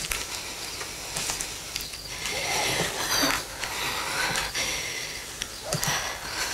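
A person breathing heavily and noisily, with a few light clicks and rustles.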